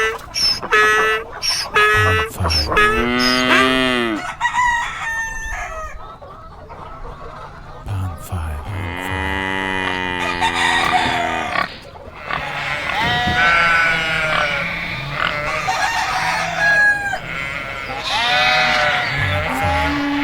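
Farm animal sound effects played one after another: a series of separate animal calls, several of them long pitched cries that fall away, with short gaps between.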